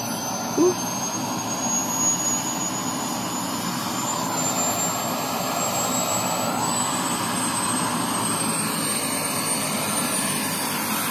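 Light helicopter's turbine engine running, with a steady rushing noise under a thin high whine that climbs slowly in pitch as the turbine spools up.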